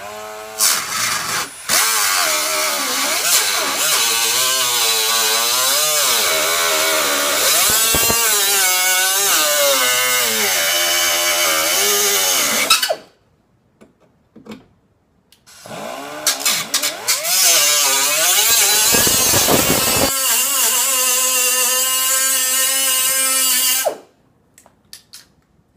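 Die grinder cutting off excess sheet metal from a truck rocker panel, running hard in two long spells with a short stop between; its whine dips and wavers as the wheel bites into the metal and holds steadier toward the end of the second spell.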